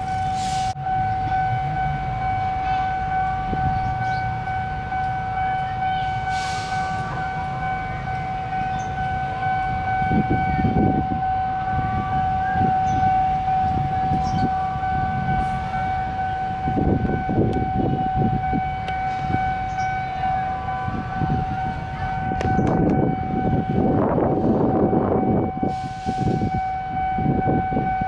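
Level-crossing warning alarm sounding one steady high tone without a break, over the low running of a diesel locomotive approaching slowly with its train. Louder swells of engine and rail noise come about ten seconds in, again at seventeen, and most strongly from about twenty-three to twenty-six seconds.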